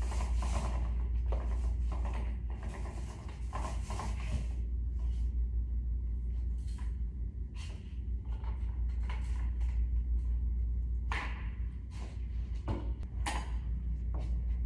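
Paint roller rubbing across a wall in quick repeated strokes for the first four or five seconds, then scattered light clicks and knocks, over a steady low rumble.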